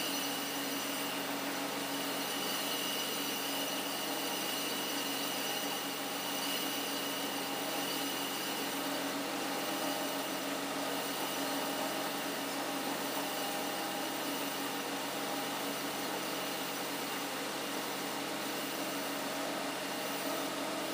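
Metal lathe running steadily as a lathe tool recuts a groove in a forklift clutch piston: an even machine hum with several held tones.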